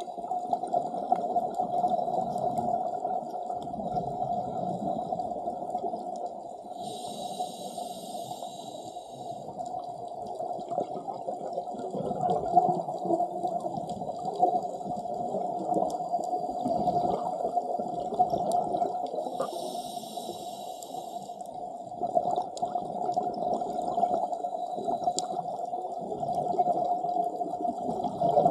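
Underwater ambience around scuba divers: a steady dull wash, broken twice by bursts of bubbles from a regulator exhalation, about 7 seconds in and again about 20 seconds in.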